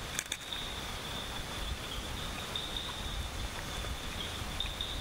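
Tropical forest ambience: a steady high-pitched insect drone with a low rumble beneath it, and a couple of short clicks just after the start.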